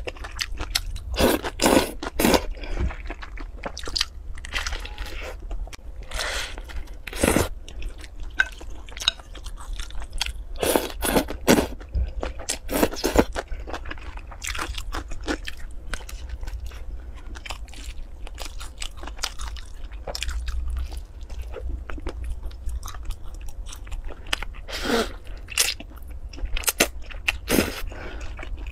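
Close-miked crunchy bites and chewing of a crispy sesame-crusted fried bread, in irregular crackling clusters with short pauses between them.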